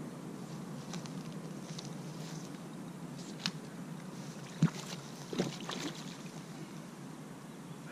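Hooked carp splashing and thrashing at the surface close to the bank as it is played in, a few short splashes in the middle, the sharpest just under five seconds in, over a steady low rush.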